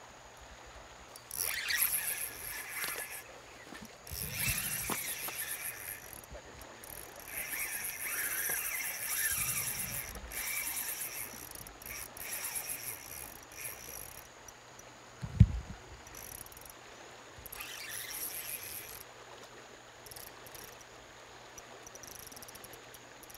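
Spinning reel running in bursts of a few seconds while a big payara is fought on the line, with a single dull thump about fifteen seconds in.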